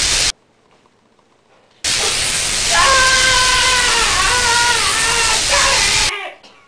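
Electric crackling hiss of a dubbed-in force-lightning sound effect: a short blast that cuts off abruptly, then after a second and a half of quiet a longer blast of about four seconds that stops just as suddenly. A man's drawn-out yell runs over the second half of it, its pitch slowly sagging.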